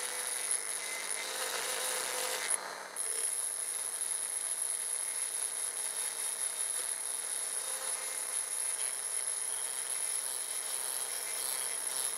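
Rotary multi-tool running at speed with a steady high whine, its burr grinding the concave faces of Hastelloy X nickel-alloy turbine blades. The sound dips briefly about two and a half seconds in.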